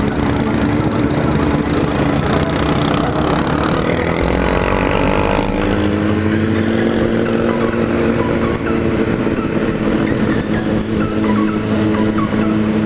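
Motorcycle engine running at cruising speed, its note rising slightly and then holding steady, with wind rushing over the microphone.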